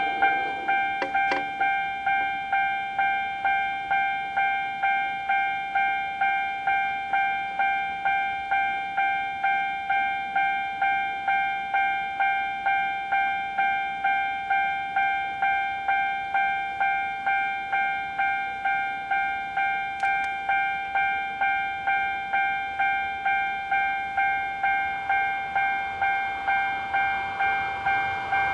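Japanese level-crossing warning bell ringing, an electronic ding repeated about twice a second. The rumble of an approaching train rises under it near the end.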